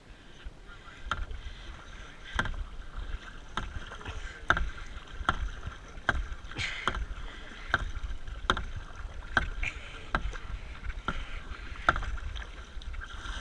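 Kayak paddling: a double-bladed paddle stroking steadily through river water, each stroke marked by a short sharp click or knock, a little more than one a second. A low wind rumble on the microphone runs underneath.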